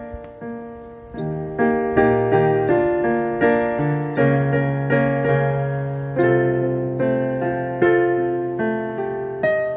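Electronic keyboard played with a piano sound: two-handed chords struck every half second or so, each ringing out and fading, with low bass notes joining about a second in.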